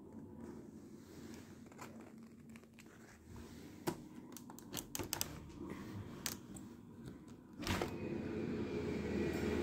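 Scattered clicks and knocks from a hand handling a white PVC balcony door at its frame and handle, then a single sharp clack as the door is opened, after which a steady background noise grows louder.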